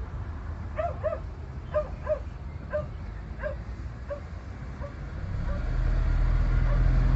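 A dog barking a string of short yelps, in quick pairs at first and then spaced out and fading. Under it a low vehicle rumble grows louder near the end.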